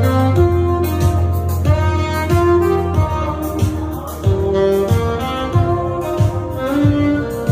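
Live saxophone playing a melody of held notes over a backing track with a steady beat and a bass line.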